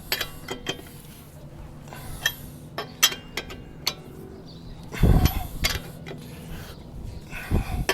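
Lug nuts being tightened with a wrench on a vehicle's wheel: scattered metal clicks and clinks, with heavier thumps about five seconds in and again near the end as more torque goes on.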